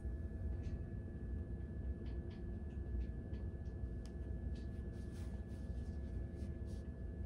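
Steady low room rumble with a faint constant hum, and soft, scattered rustles and small ticks as fingers pull and work strands of a braid.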